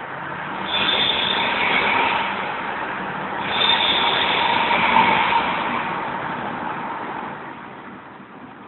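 Subaru Impreza WRX STI's turbocharged flat-four running, its exhaust giving a high-pitched whistle that swells twice and then fades away.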